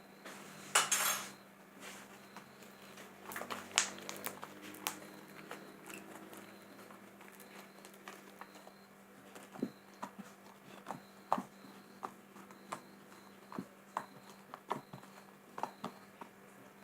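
A spoon clinking and scraping against a container as glue-and-foam slime is stirred: a short scrape about a second in, then scattered light clicks at an uneven pace.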